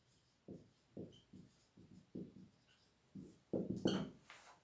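Faint scratching strokes of a marker writing a word on a whiteboard, a short stroke every few tenths of a second, with a louder quick run of strokes near the end.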